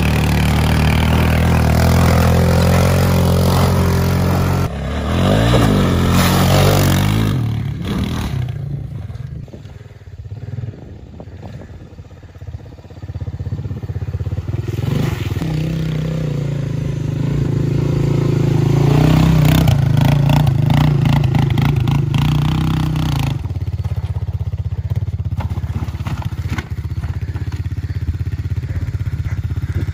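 Honda FourTrax ATV's single-cylinder four-stroke engine running under a rider on rough grass, revving up and down a few seconds in, dropping quieter for a stretch, then pulling steadily again.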